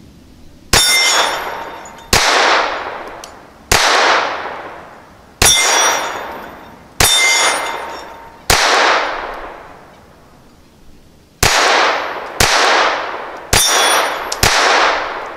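Ruger LCP II .22 LR pistol firing ten CCI Mini Mag rounds in single shots, each crack trailing off in a long echo, a few followed by a brief metallic ring. Shots come about a second and a half apart, with a longer pause after the sixth and the last four quicker; the whole magazine cycles without a jam.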